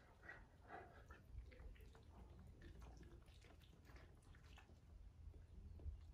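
Near silence, with faint sounds of a Cavalier King Charles Spaniel puppy mouthing and nibbling at a Newfoundland's fur, a few of them in the first second, over a steady low rumble.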